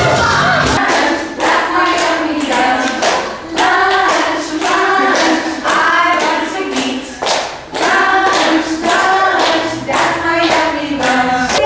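A group singing a children's song over a steady clapping beat. The bass drops out about a second in, leaving the voices and claps.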